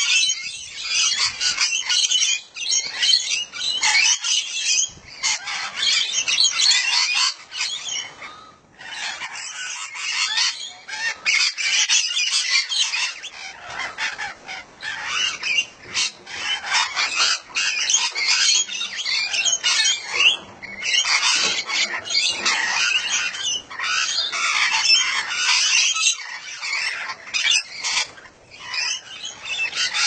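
A group of parrots squawking and chattering, with many short, shrill calls overlapping almost without pause.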